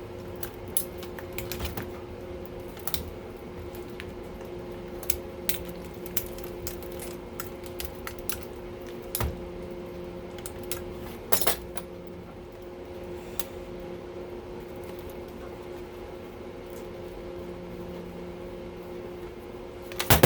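Scattered small metallic clicks and clinks of hand tools against screws and parts as a circuit breaker is taken apart by hand, over a steady hum. The loudest clinks come about eleven seconds in and again at the very end.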